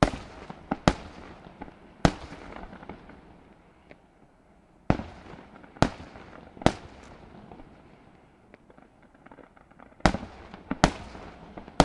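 Aerial firework shells bursting: about nine sharp bangs in three clusters (near the start, from about five to seven seconds in, and near the end), each trailed by a rolling echo over a steady background hiss.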